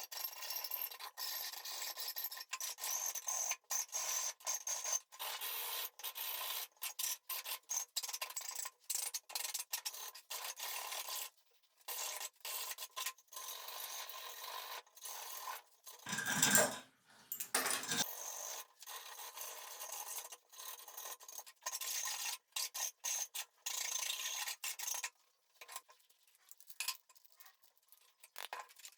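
Repeated short rasping strokes of hand abrasive work, filing or sanding, on a small axe, a few strokes a second. About halfway through there is one louder, deeper handling knock.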